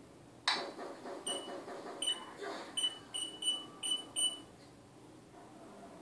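African grey parrot mimicking an electronic beeper: a sudden harsh sound about half a second in, then about seven short high beeps at one pitch, unevenly spaced, stopping a little after four seconds.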